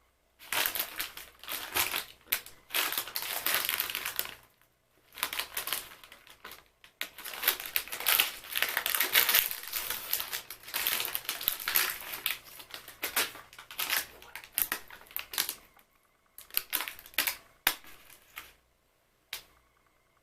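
Close-up crinkling and crunching from a packet of sfogliatine glassate, glazed puff-pastry biscuits, in long uneven bursts with short pauses, then a single click near the end.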